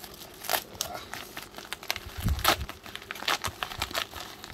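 Plastic bubble mailer crinkling and crackling as hands grip and pull at it to open it, in irregular bursts, with the loudest rustle and a dull bump a little over two seconds in.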